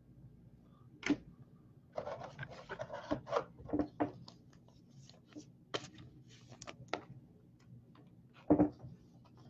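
Baseball cards and rigid plastic top loaders being handled: cards slid into the holders and set down on the table, with rustling, scraping and light plastic clicks. A louder knock comes near the end.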